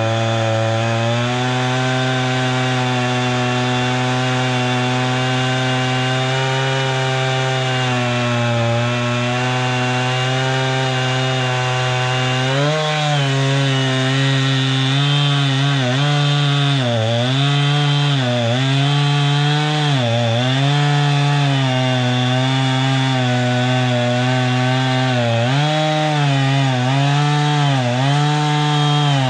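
Norwood MX34 portable bandsaw mill's gas engine running at high speed as the mill saws a log. The first half is steady. From about halfway, the engine dips in pitch and recovers about once a second under the load of the cut.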